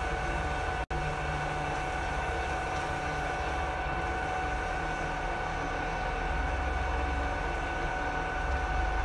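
Ibarmia 1B-35-G pillar drill running free with nothing being drilled: a steady whine from its three-phase motor and spindle drive over a low rumble. The sound cuts out for an instant about a second in.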